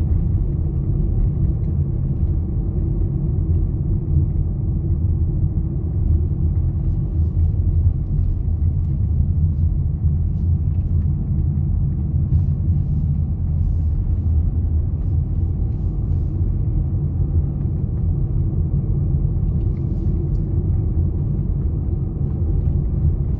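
A car driving steadily along a paved road: an even low rumble of tyres and engine, with a few faint ticks.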